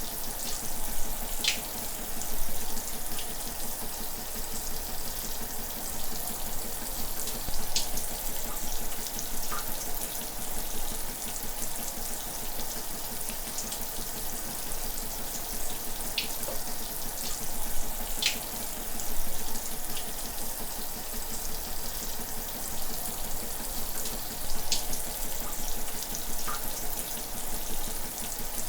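Shower water running steadily, spray hissing and splashing, with occasional small splats and drips standing out above the steady rush.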